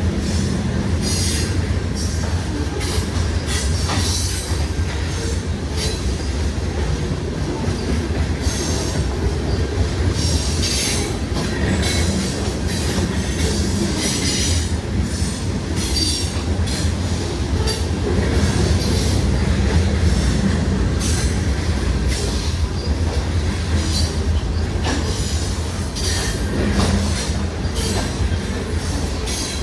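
Freight cars of a CN grain train rolling past: a steady low rumble of wheels on rail, with repeated wheel squeal and clatter.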